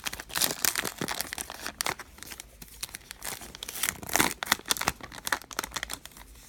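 Baseball card pack wrappers being torn open and crinkled by hand: a run of irregular crackles and rips.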